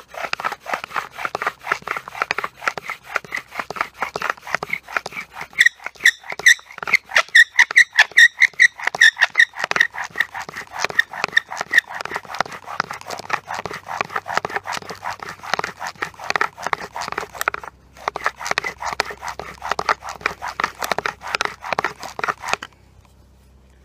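Spruce bow drill being worked fast: with each stroke of the bow the spruce spindle rasps and squeaks in the spruce hearth board, squealing loudest a few seconds in. There is a brief break about two-thirds through, and the strokes stop about a second before the end. The friction is grinding out the hot dust that forms an ember.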